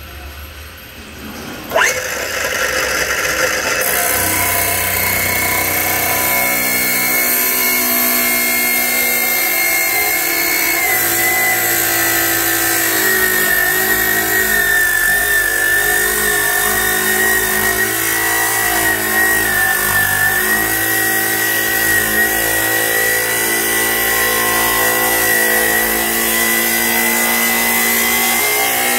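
Heavy-duty abrasive cut-off chop saw switched on with a sudden start and a high whine, then its wheel grinding steadily through a steel channel section. The whine dips slightly in pitch partway through as it cuts.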